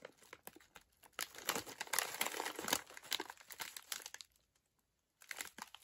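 A plastic Walkers crisp packet crinkling as it is handled and turned over in the hands. The crackling starts about a second in and stops suddenly a little past four seconds.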